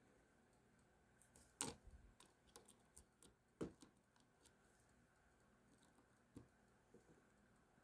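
Faint small clicks and taps of a ratcheting screwdriver's small parts being handled and fitted during reassembly. A quick run of them from about a second in, the loudest two near its start and middle, then a few scattered fainter ticks near the end.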